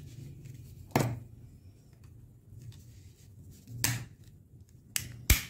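Plastic snap-fit latches of a Vozol Star 20000 disposable vape's shell clicking free as the case is pried and pulled apart. Four sharp clicks: one about a second in, one near four seconds, and two close together near the end, the last the loudest.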